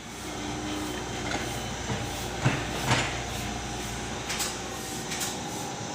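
Komatsu PC78 mini excavator's diesel engine running steadily while it works, with a few short clanks and scrapes from the machine about halfway through and again near the end.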